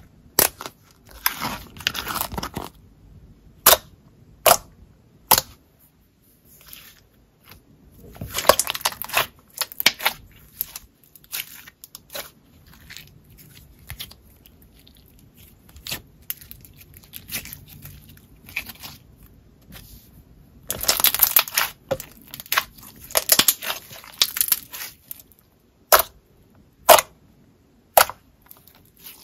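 Hands squishing and folding soft, glossy mixed slime: sticky crackling squelches in a few bursts, with sharp single bubble pops now and then, several near the end.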